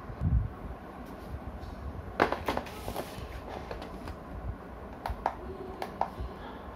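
Light clicks and knocks of hard plastic Beyblade parts being handled: a dull thump at the start, a quick cluster of clicks about two seconds in, and a few sharp single clicks near the end.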